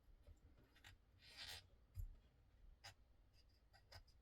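Faint scratchy scrubbing as a small knife part is wiped clean, with a few light clicks of the metal parts being handled.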